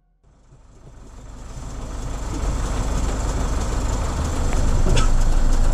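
A motor vehicle's engine running steadily, a low rumble with broad noise over it, fading in from silence over the first two seconds or so. A short sharp click cuts through about five seconds in.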